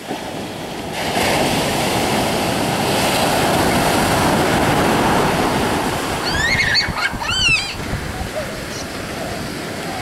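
Ocean surf breaking and washing up the beach, getting louder about a second in as a wave rolls in. About two-thirds of the way through, a child squeals a few times over the surf.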